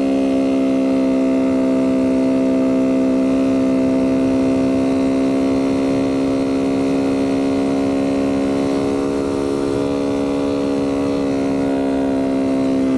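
Kawasaki Z125 Pro's small single-cylinder engine running at steady revs while riding, its note holding one pitch with a slight dip about two-thirds of the way through.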